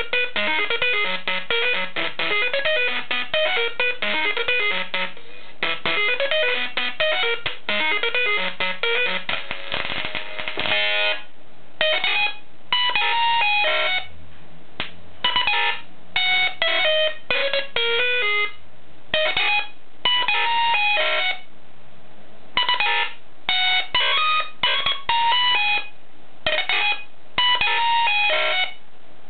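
Music played through the arc of an audio-modulated flyback transformer (a plasma speaker): a melody of quick notes. After about eleven seconds the music keeps cutting out and coming back in short runs, as the arc goes out and strikes again.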